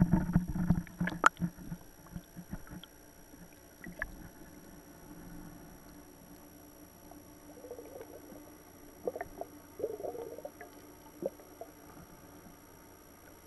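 Muffled underwater sound through a camera's waterproof housing: water sloshing and knocks against the case in the first second or two, then a faint steady low hum with a few scattered small clicks.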